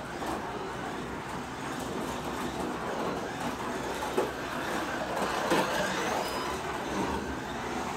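Carrera Digital slot car running laps on the plastic track: the small electric motor's steady whirr and the tires on the track surface as it circles. A sharp click about four seconds in.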